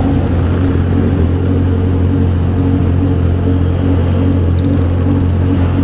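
A straight-piped Honda Hornet's engine idling steadily among other idling motorcycles: an even, low hum with no revving.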